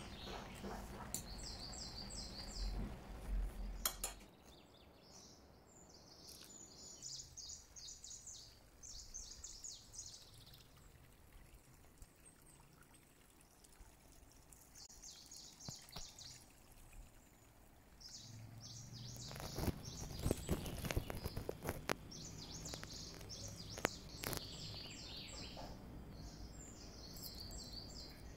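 Small birds chirping in quick repeated phrases throughout. A fork rustles and clicks against a pot of cooked rice in the first four seconds, and there is more utensil clinking and scraping from about nineteen to twenty-four seconds in.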